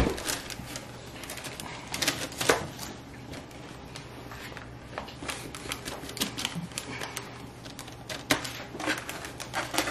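Parchment paper and a disposable aluminium foil pan crinkling and clicking irregularly as hands press and pinch pizza dough into the pan.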